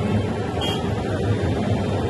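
Steady low rumble of road vehicles and engines, with one short high-pitched beep about two-thirds of a second in.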